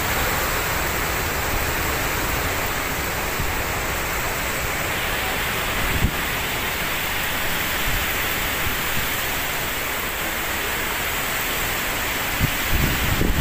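Typhoon wind and heavy rain: a loud, steady rushing, with a few short low thumps about six seconds in and again near the end.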